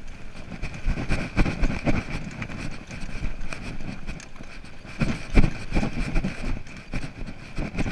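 Juiced RipCurrent e-bike ridden fast over a bumpy dirt trail: the frame and handlebars rattle and jolt over the ground, with tyre and wind noise, a steady high whine underneath, and several heavy knocks, the hardest about five seconds in.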